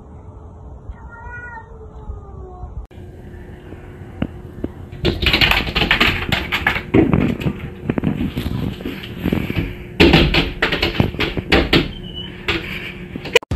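Cats yowling. First a wavering yowl whose pitch bends up and down about a second in, as two cats face off. Then louder, harsher bouts of cat noise from about five seconds in and again near ten seconds, with a few sharp taps.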